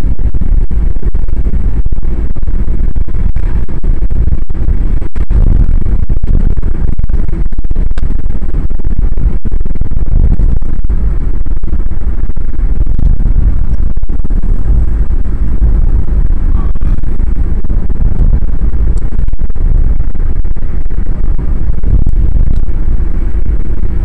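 Car driving noise: a steady, very loud low rumble that is clipped, with many brief dropouts.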